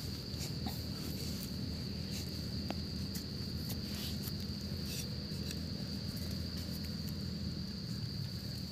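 Steady, high single-pitched insect drone, with a few faint clicks and scrapes of a hand and stick working the soil and dry leaves.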